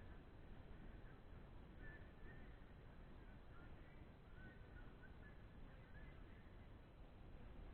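Near silence: faint, scattered short bird chirps over a low, steady rumble.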